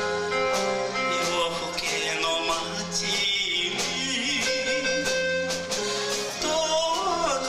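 Live band accompaniment with a man singing into a microphone through the hall's PA, with sustained instrumental notes under the voice.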